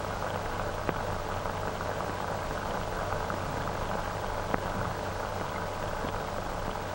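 Worn optical film soundtrack with no speech or music: steady hiss and crackle over a low hum, with a sharp pop about a second in and another about four and a half seconds in.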